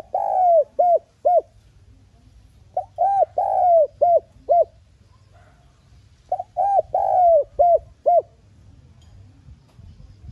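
Spotted dove cooing: phrases repeated about every three seconds, each two short coos, one longer drawn-out falling coo, then two short coos.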